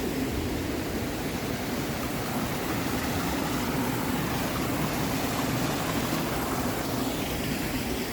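Rushing creek water cascading over rocks: a steady, even rush of water noise.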